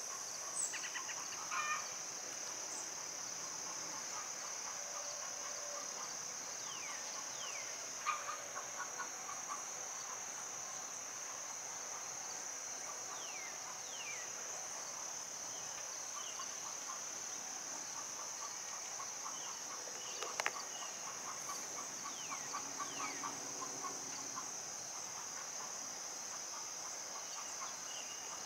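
Insects droning steadily in a high-pitched, unbroken chorus, with short falling bird chirps and a few brief bursts of bird calls scattered through it.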